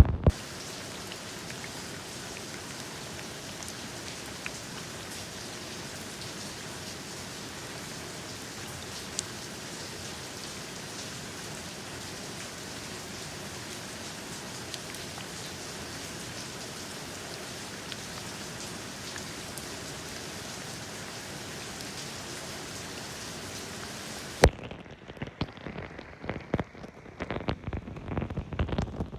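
Steady rain falling, an even hiss with a few single drops ticking through it. About five seconds before the end it cuts off with a sharp click into irregular, louder drips and taps with less treble.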